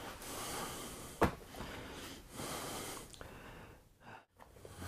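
A small plastic cooler being handled: one sharp click about a second in, amid soft hissing noise that comes in two stretches.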